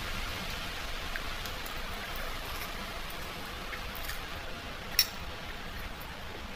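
Steady background hiss with a few faint clicks, and one sharp click about five seconds in.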